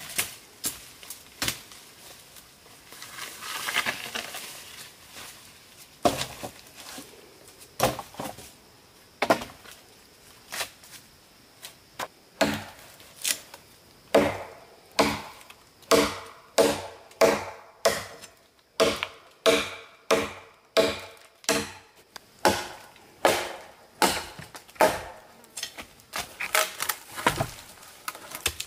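A blade chopping on wood. The strokes are scattered at first, then fall into a steady rhythm of nearly two a second in the second half.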